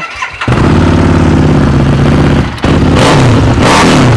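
Harley-Davidson Street Rod 750 with a Vance & Hines short-can exhaust: its V-twin engine comes in suddenly and loudly about half a second in and runs steadily, dips briefly near the middle, then is revved in repeated throttle blips.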